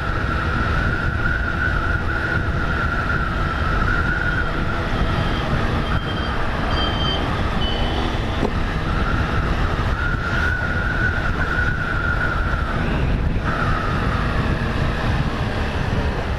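Honda 160 motorcycle's single-cylinder engine running steadily as it rides along a street, mixed with road and wind noise.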